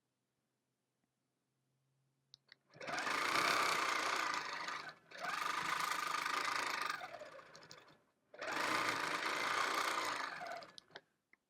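Longarm quilting machine stitching in three runs of two to three seconds each, with short stops between, after a quiet start.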